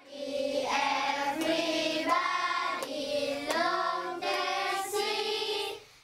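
A group of children singing together in short sung phrases, cutting off shortly before the end.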